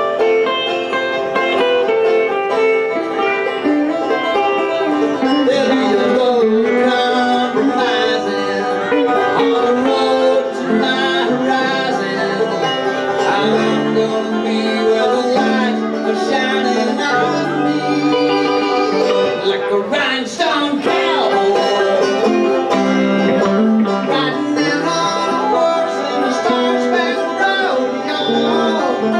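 Live bluegrass-style instrumental: a banjo picking steadily alongside an amplified electric guitar, with no break in the playing.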